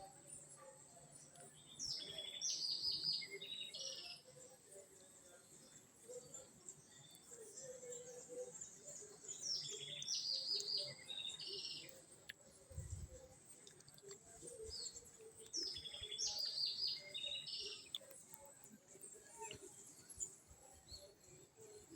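A songbird sings the same short, high, chirping phrase three times, each about two seconds long and six to seven seconds apart. A soft low thump comes about two-thirds of the way through.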